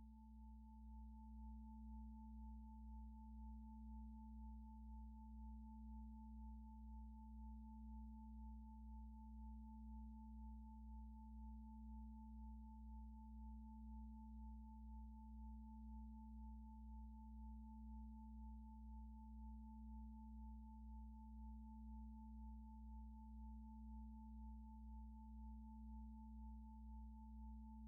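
Faint steady electronic drone of a few held tones, low, middle and high, gently pulsing in loudness a little more than once a second: a quiet background music bed.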